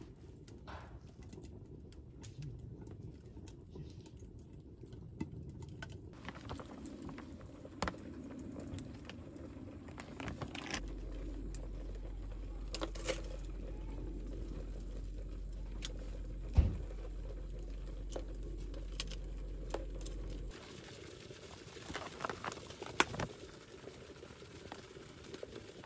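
Scrap-wood fire crackling inside the chimney of a Petromax Fire Kettle, with scattered sharp clicks. One loud knock comes about two-thirds of the way through, and a few more clicks come near the end.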